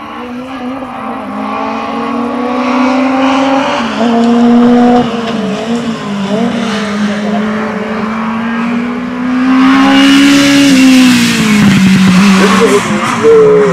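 Racing car engine at full throttle climbing a hill, its note rising and dropping with gear changes and throttle. It gets louder as the car approaches and is loudest as it passes close about ten seconds in.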